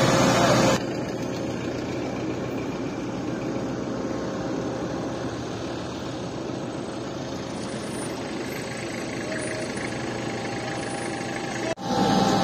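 A vehicle engine running steadily, an even low hum. The sound is louder for the first second and breaks off briefly near the end.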